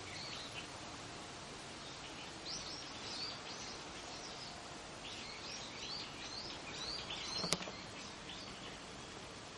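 Small birds chirping in short clusters of quick calls over a steady outdoor hiss, with a single sharp click about seven and a half seconds in.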